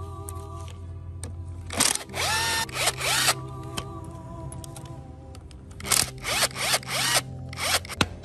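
Cordless power driver undoing bolts on an old small engine's casing, run in trigger bursts whose motor whine rises each time it spins up: a longer burst about two seconds in, then a quick string of short ones near the end. A steady low hum runs underneath.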